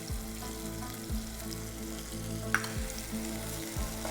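Blended onion with ginger-garlic paste frying in oil in a pan, sizzling steadily while it is stirred, with a sharp click about two and a half seconds in.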